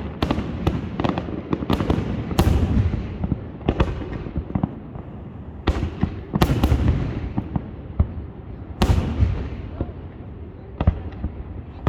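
Aerial fireworks shells bursting: a dozen or so sharp bangs at irregular intervals, each trailing off in a low rumble, with crackling in between.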